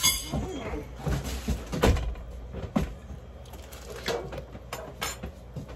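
A few sharp knocks and clinks from forks and kitchenware being handled, the loudest about two seconds in.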